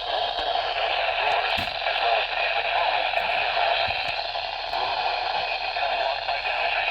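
Steady static hiss from a weather radio receiver's speaker.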